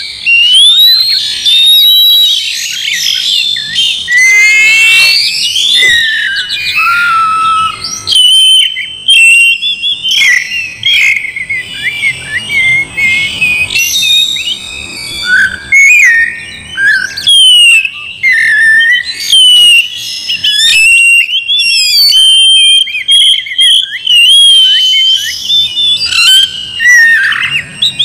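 Male oriental magpie-robin singing in full song: a loud, varied run of clear whistles, slurred up-and-down glides and quick trills, broken by brief pauses.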